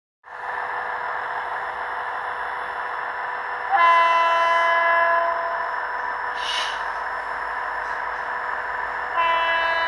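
GT22 diesel locomotive sounding its multi-tone air horn: a long blast a little under four seconds in, then another starting near the end, over a steady rushing noise from the locomotive.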